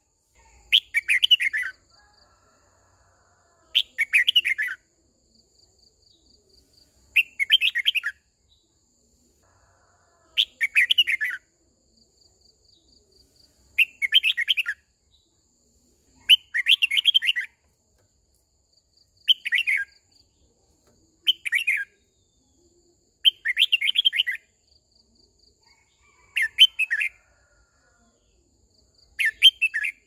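Red-whiskered bulbul singing short, loud warbling phrases, each under a second long, repeated about every two to three seconds. This is the call of a decoy bird used to draw in a flock.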